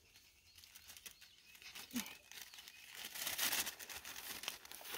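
Brown paper bag crinkling and rustling as a freshly cut mushroom is put into it, loudest a little past halfway.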